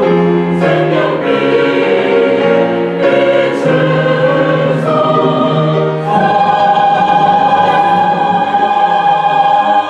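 Church choir singing a sacred anthem in Korean, with chords moving in step and then settling on one long held chord from about six seconds in: the closing chord of the piece.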